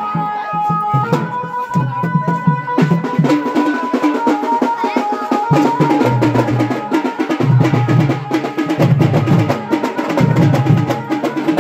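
Traditional drum music: a dense run of drum strokes with deep beats under a long-held, piping wind-instrument melody.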